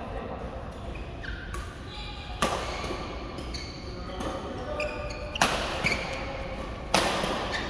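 Badminton rally: rackets striking the shuttlecock with sharp cracks, three in all, each ringing on in a large echoing hall. Sneakers squeak briefly on the court mat between shots.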